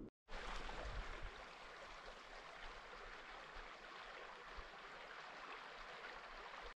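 Faint, steady rushing of a river's flowing water.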